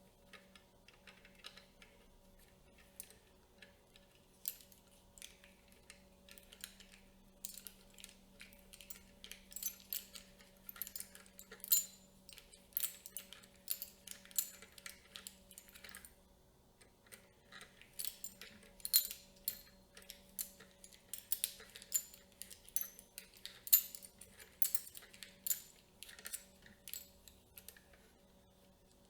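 Small metal and plastic camera-rig parts being handled and fitted: irregular light clicks, taps and rattles, sparse at first, thicker later, with a short lull about halfway through.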